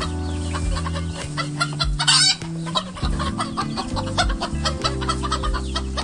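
Domestic chickens clucking in a rapid run of short calls, with one louder call about two seconds in, over background music.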